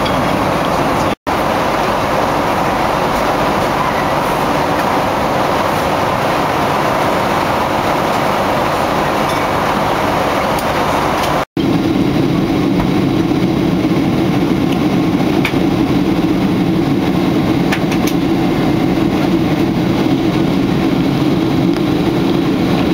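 Steady in-flight cabin noise of a Boeing 767 airliner: a continuous hiss and rumble of airflow and jet engines. Two brief dropouts break it, about a second in and about halfway through; after the second, with a seat beside the engine, the rumble is deeper and heavier.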